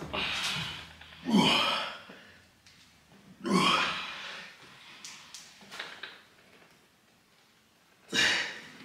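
Grunts and forceful breaths of a man straining hard in an arm-wrestling pull: four loud separate bursts, some voiced and falling in pitch, some breathy.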